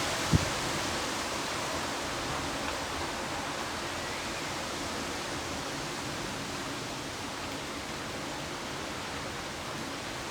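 Heavy rain falling steadily in a thunderstorm, an even hiss that eases very slightly over the seconds. A single short knock sounds about half a second in.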